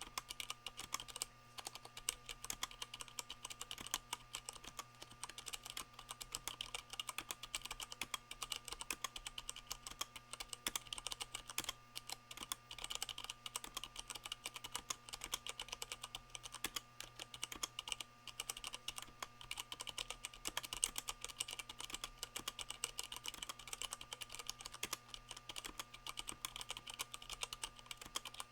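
Continuous fast typing on a Leopold FC660M mechanical keyboard with Cherry MX Brown switches fitted with O-rings, which damp the keycaps bottoming out. Keystrokes follow each other several times a second without a break, over a faint steady hum.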